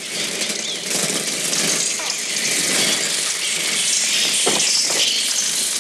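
Film soundtrack of a swarm of birds flooding into a house: a loud, dense, steady rush of fluttering wings.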